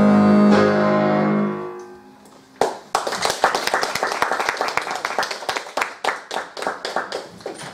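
Alto saxophone and piano end a piece on a long held chord that fades out within about two seconds. After a short pause, a small audience applauds with scattered, uneven claps.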